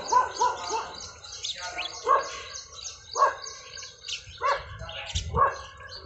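Many small birds chirping and twittering continuously. Louder short calls from another animal cut through, a quick run of them at the start and then single calls about once a second.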